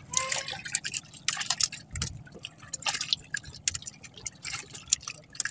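Seawater splashing and dripping beside an outrigger boat in quick, irregular clicks and small splashes as a fish is hauled up out of the water on a handline.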